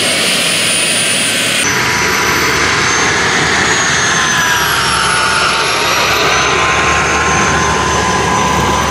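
Turboprop turbine engine of an RC scale model Embraer T-27 Tucano running: a steady rush with a high turbine whine that drifts slowly up and down in pitch.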